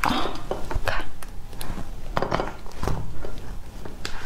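Durian being pried open by hand: the spiky husk cracking and its fibrous inner pith tearing, with scattered clicks and rasps as the shell segments are pulled apart.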